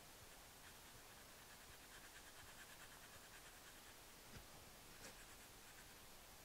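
Very faint, rapid scratchy pattering of brown sugar and cinnamon filling being shaken from a metal bowl onto rolled dough, coming and going, with two small taps a little after four and five seconds in.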